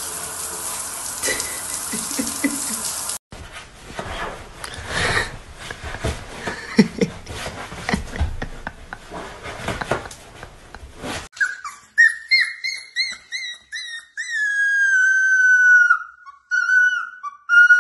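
Running water hisses for about the first three seconds, then comes a stretch of knocks and rustling. From about twelve seconds a puppy howls: a string of short, high, wavering notes, then longer drawn-out wails that sag slightly in pitch.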